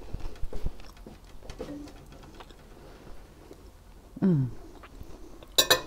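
Knife and fork clicking against a ceramic dish while the chicken is cut. A short, falling "mmm" of enjoyment comes about four seconds in, and a sharp ringing clink of metal cutlery on the dish comes near the end.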